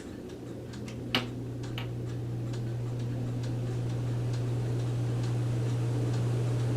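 1984 Lasko wall-mounted oscillating fan switched on at low speed, its motor hum starting and growing steadily louder as it spins up. A sharp click comes about a second in, with faint light ticking through the rest.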